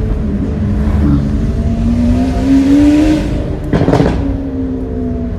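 Lamborghini Aventador S's V12 engine pulling ahead, heard from inside a following car: its note rises steadily for about three seconds, a short sharp burst comes near four seconds in, and it then settles to a steady note.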